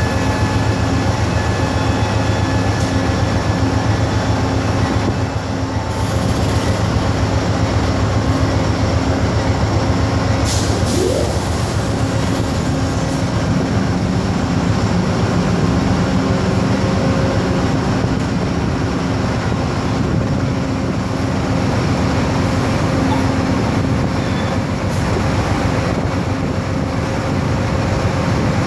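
Amtrak Silver Star passenger cars rolling slowly past along the platform: a steady rumble of steel wheels on rail with an even hum underneath. There is a short rising squeal about eleven seconds in.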